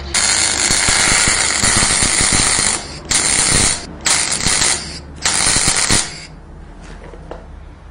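MIG (semi-automatic) welder arc crackling as a bead is laid on steel tube under carbon dioxide shielding gas: one run of about three seconds, then three short bursts, stopping about six seconds in.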